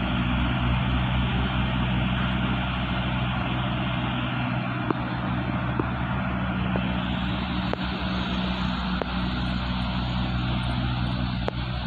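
Diesel railcar train's engines running steadily as it pulls out of the station. A few sharp clicks come in from about the middle onward.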